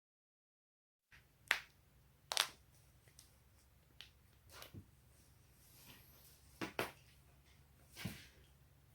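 Neck and back joints cracking: a series of sharp pops beginning about a second in. The two loudest come close together near the start, then fainter ones follow every second or two, about seven in all.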